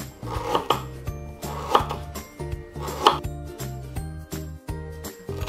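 Chef's knife slicing fresh galangal into rounds on a wooden cutting board: a few sharp chops against the board, about a second and a quarter apart, over background music.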